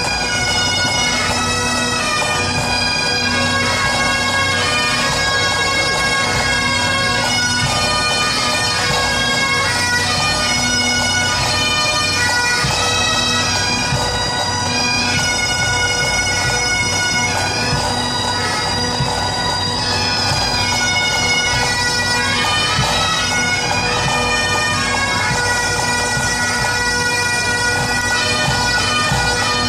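A pipe band's Great Highland bagpipes playing a tune: steady drones held under a chanter melody that moves from note to note, with snare and bass drums beating underneath.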